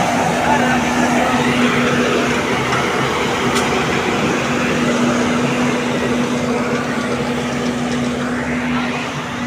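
Diesel engine of an asphalt paver running with a steady hum while it lays a fresh road surface.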